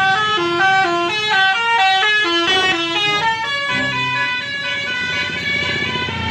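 A multi-tone 'telolet' musical horn on a coach bus plays a quick tune of short notes stepping up and down in pitch. About two-thirds through, the tune gives way to a lower, steadier buzzing tone.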